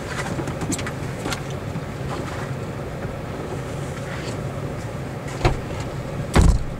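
Inside a parked car, the engine runs with a steady low hum while passengers shift and rustle getting out. A sharp knock comes about five and a half seconds in, then a heavy thump, the loudest sound, as a car door shuts.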